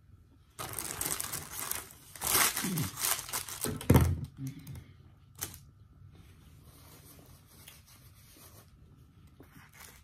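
Paper fast-food bag being torn open and crinkled, in loud rustling bursts over the first few seconds, with a thump at about four seconds in. After that come only faint small clicks of handling.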